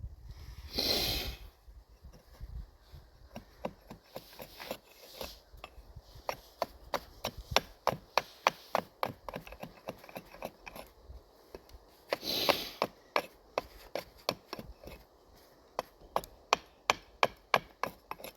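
Gränsfors Bruks Carpenter's Axe taking light, quick chopping cuts into a wooden spoon blank, two or three strokes a second, with two longer rasping slicing cuts, about a second in and about twelve seconds in.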